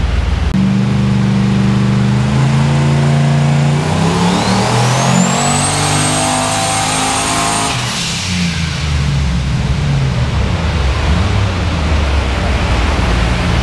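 Turbocharged 6.0-litre V8 of a Trailblazer SS under full throttle on a hub dyno: the engine note climbs with the revs while the turbo's whine rises to a high, steady whistle. About eight seconds in the throttle shuts, the whistle and engine note drop away, and a steady rushing noise remains.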